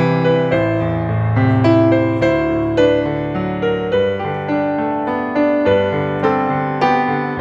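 Piano playing a slow melody over chords, notes struck a few times a second and left to ring.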